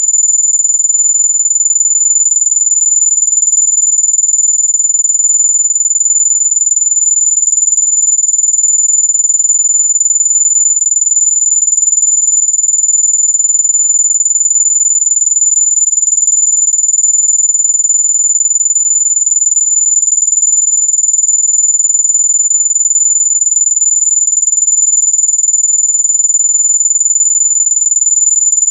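Electronic mosquito-repellent tone: a single steady high-pitched whine at about 7 kHz, unbroken and unchanging in level.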